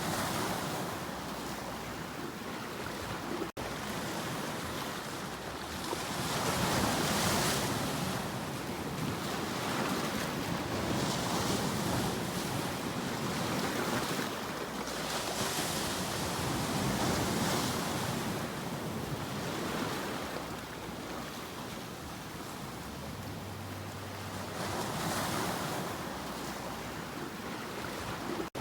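Ocean waves breaking and washing on a shore, a steady rush that swells and ebbs every few seconds.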